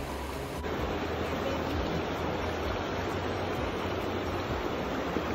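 Shallow river water running over rocks, a steady rushing that changes abruptly about half a second in.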